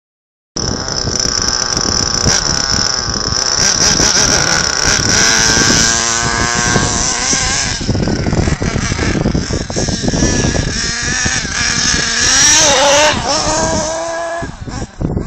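Carson Specter 1/8-scale nitro RC buggy's small two-stroke glow engine running and revving, a high whine rising and falling in pitch. It starts about half a second in and eases off near the end.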